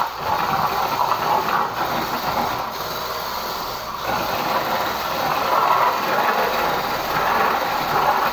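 Handheld electric stick mixer running steadily, churning thin cake batter in a plastic bowl, its level wavering a little as it is moved through the batter.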